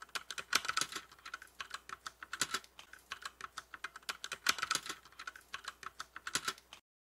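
Rapid computer-keyboard typing sound effect, bursts of quick irregular key clicks that cut off suddenly near the end.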